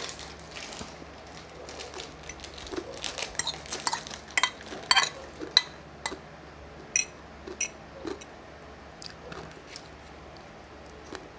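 Metal fork and spoon clinking and scraping against plates as people eat, in irregular scattered clicks that thin out near the end.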